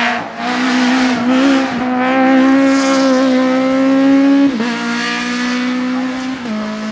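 Hillclimb race car's engine at high revs, pulling hard up the course. The pitch climbs slowly, then drops sharply about four and a half seconds in and again near the end as the driver shifts up.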